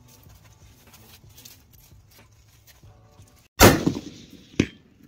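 A single 6.5-284 rifle shot, followed about a second later by a shorter, sharp crack: the bullet striking a distant steel plate.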